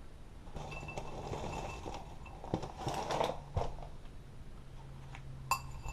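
Cereal packaging being handled: papery rustling for the first few seconds, with a few sharp light knocks and clicks.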